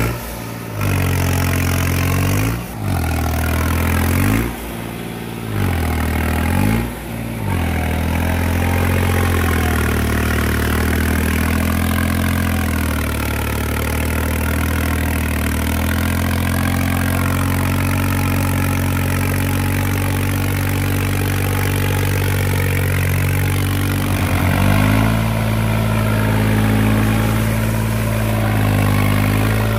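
New Holland 3630 tractor's three-cylinder diesel engine under full load as its wheels spin in deep mud. In the first few seconds it bogs down and picks up again four times, then holds at high revs, with one more brief dip near the end.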